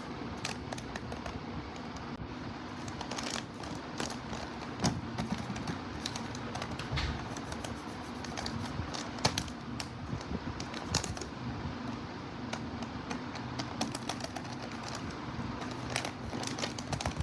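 Irregular clicks, taps and crinkles of hands handling a paper blind bag, over a steady low hum.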